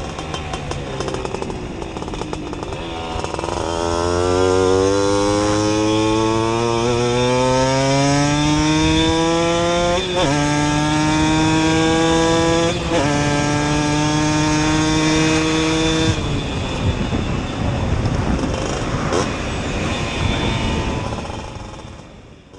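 Simson two-stroke moped with a 60 cc cylinder kit and Jack Motors exhaust accelerating, its engine pitch rising steadily. The pitch dips briefly twice, about ten and thirteen seconds in, as it shifts up, then runs on fairly level. The engine tone drops out about sixteen seconds in, and the sound fades away near the end.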